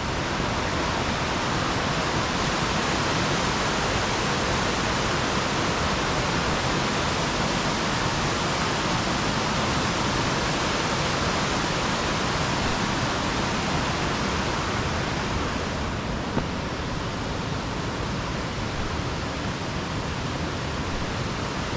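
Waterfall rushing steadily, a little quieter from about sixteen seconds in.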